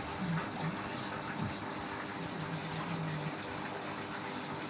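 Steady rushing background noise, like running water or a fan, with no distinct event.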